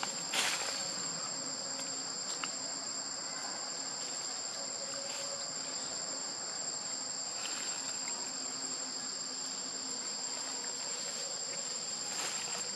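Steady high-pitched drone of an insect chorus, holding two unchanging shrill pitches throughout, with a few faint brief rustles.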